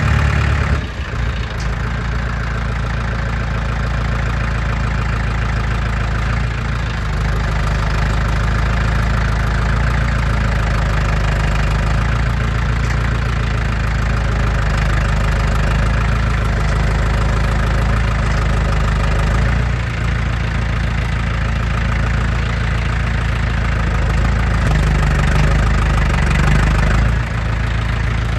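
Farm tractor engine running steadily, with a short dip in level about a second in and another near the end.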